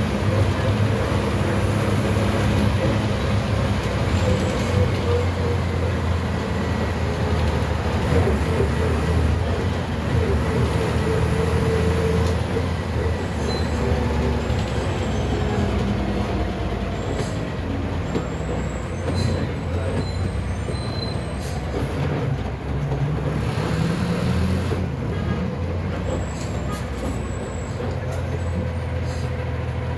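MWM TCA 6.10 six-cylinder bus engine, converted to run on compressed natural gas, running steadily in a Volksbus 17.210 OD city bus, its pitch shifting up and down. Brief high squeaks come and go in the second half.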